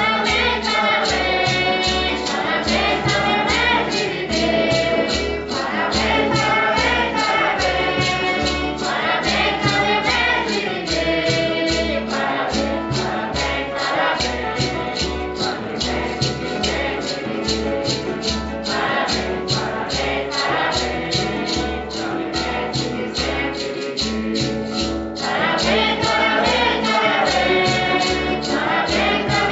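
Choir singing a Santo Daime hymn, with a steady percussive beat keeping time underneath.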